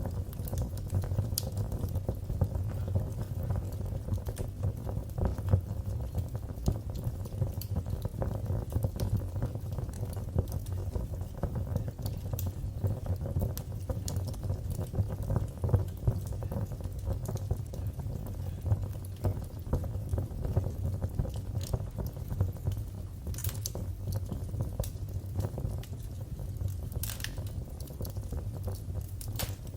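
Wood fire burning in a fireplace: a steady low rumble with dense small crackles and a few sharper pops, two of them near the end.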